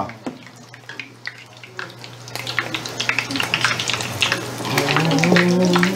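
Flour-dusted shelled mussels deep-frying in a pot of hot oil: a sizzle full of popping crackles, sparse at first and growing denser and louder about two seconds in.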